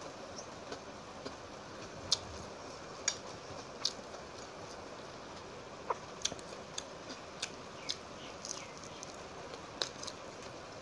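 Eating-by-hand sounds: scattered small, sharp clicks and crackles as fingers work rice and crisp fried fish on a steel plate, over a steady low hiss. The clicks come more thickly in the second half.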